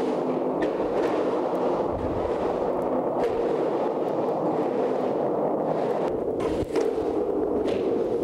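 Skateboard wheels rolling with a steady rumble as a skater carves up and down the curved walls of a large drain pipe, the sound filling the tube. A few short clicks come from the board.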